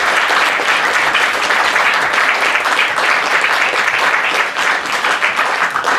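Audience applauding, a dense, steady patter of many hands clapping that begins to thin out near the end.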